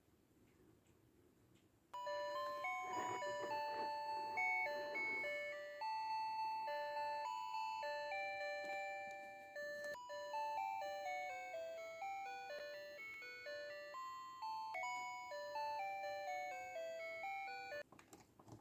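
Electronic jingle from a battery-powered Hello Kitty toy: a simple chiptune-style tune of single beeping notes. It starts about two seconds in and cuts off suddenly near the end, with faint handling sounds before it.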